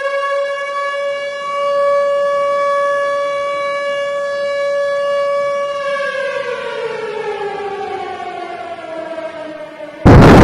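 Civil defence air-raid siren sounding the attack warning: a steady wail for about six seconds, then winding down, falling slowly in pitch. Near the end a short, very loud burst of noise cuts in and stops abruptly.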